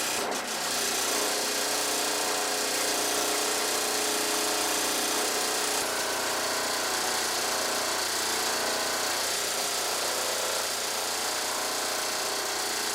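Wooden motor cruiser's engine running steadily, with a constant hiss over it.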